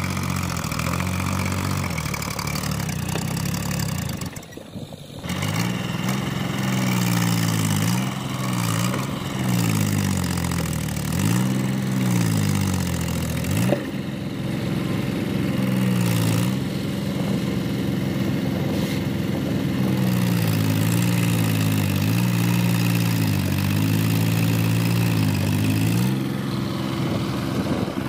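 Powertrac Euro tractor's diesel engine under load, revving up and down over and over as the tractor works through deep, loose earth. It drops out briefly about four seconds in and later holds steadier for a while, with one sharp click near the middle.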